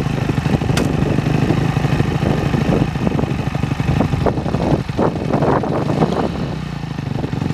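Honda CRF250R's single-cylinder four-stroke engine idling steadily, running rougher and more unevenly for a couple of seconds in the middle, with one sharp click about a second in.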